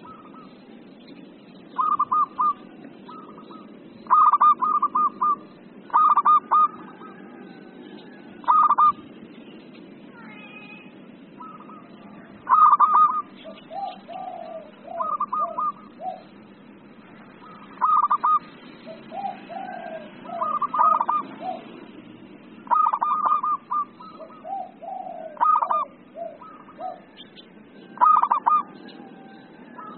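Zebra dove (perkutut) cooing: short bursts of rapid staccato coos every couple of seconds, several followed by a lower run of notes.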